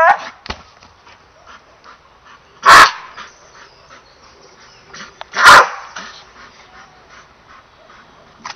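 English Bull Terrier barking twice, two short loud barks about two and a half seconds apart.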